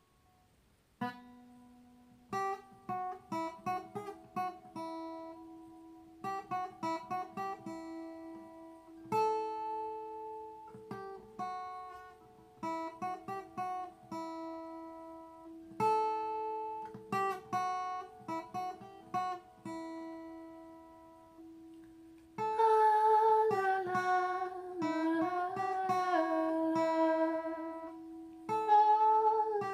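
Acoustic guitar picked slowly, single notes in short clusters of quick plucks that ring on, with pauses between phrases. It grows louder and fuller in the last quarter, with some notes wavering in pitch.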